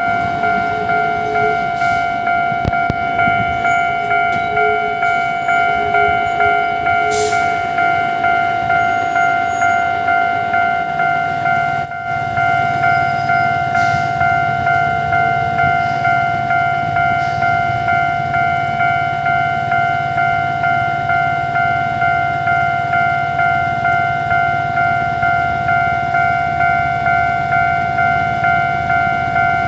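Level-crossing warning signal ringing: a steady electronic tone pulsing at an even rate. A low rumble joins it about eleven seconds in.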